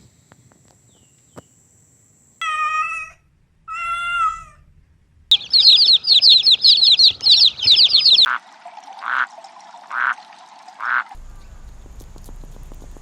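A cat meows twice, each meow short and wavering. A quick run of loud, high-pitched chirps follows, about five a second for some three seconds, then three short, lower calls about a second apart.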